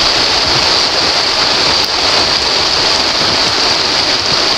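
Heavy rain pouring down, a loud, steady hiss with no breaks.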